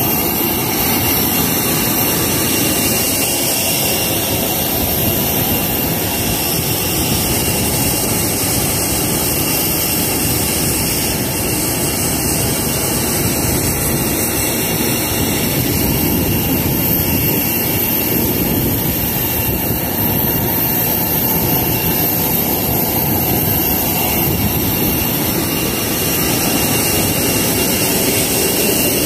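Steady, loud whine and rush of a jet turbine running on an airport apron, unchanging throughout, with a thin high whistle over it.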